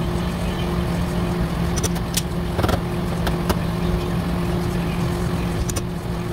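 Dent-repair work on a car door against a steady low electrical hum: about five short, sharp clicks and taps, mostly in the middle and one near the end, from the dent puller and body hammer on the panel.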